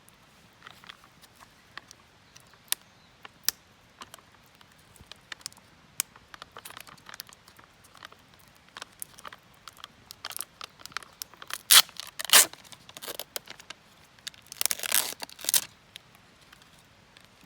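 Irregular crinkling and crackling handling sounds with sharp clicks, loudest in two clusters about twelve and fifteen seconds in.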